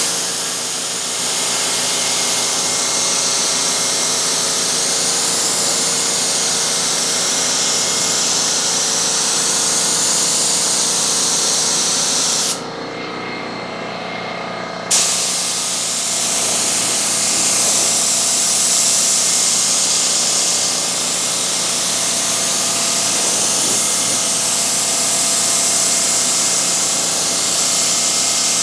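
Paint spray gun hissing steadily as primer is sprayed. The trigger is let off for about two seconds about halfway through, then the spraying resumes. A steady machine hum runs underneath without stopping.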